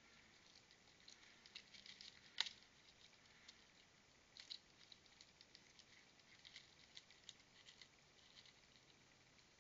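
Faint, irregular scratching and clicking of a raccoon clinging to a tree trunk and working at a bird feeder, with one sharper click about two and a half seconds in.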